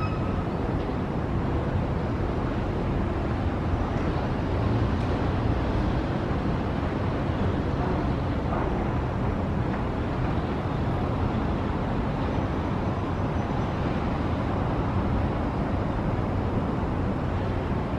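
Steady hum of distant city traffic heard from above, an even low rumble with no single vehicle standing out.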